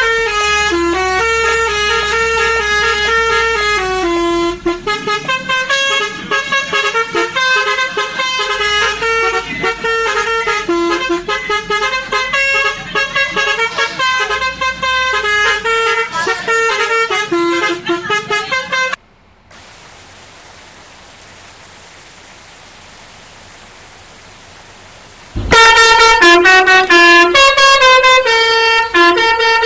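Indonesian bus's telolet basuri horn, a set of air-horn trumpets, playing a quick stepping tune of loud overlapping tones. It cuts off suddenly about 19 seconds in, leaving a quiet steady hiss for about six seconds, then starts playing again.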